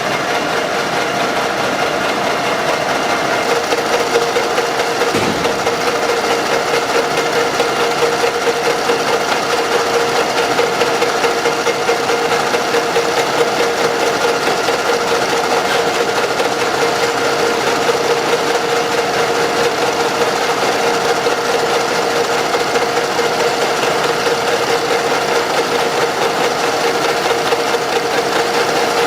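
A machine tool running steadily as it takes metal off a part, with an even, constant-pitched hum and one faint knock about five seconds in.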